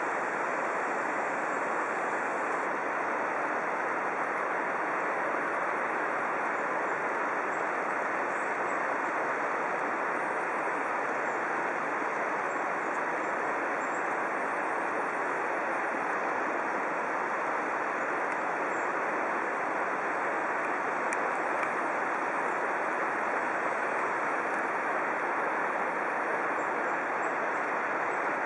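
Steady, unbroken rushing of tall waterfalls plunging down a gorge's cliff faces, at an even level throughout.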